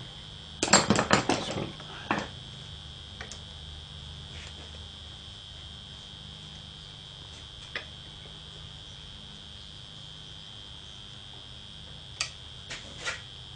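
Steady high-pitched buzz from the workshop lights over a low hum, with a short clatter of tools being handled about a second in and a few light clicks near the end as the driver works on the screws.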